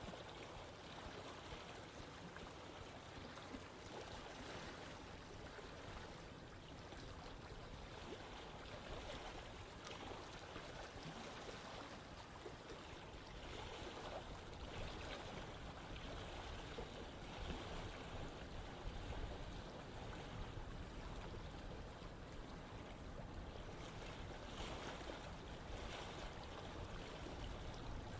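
Stream water running and splashing steadily over rocks, with small rises and falls in its gurgle.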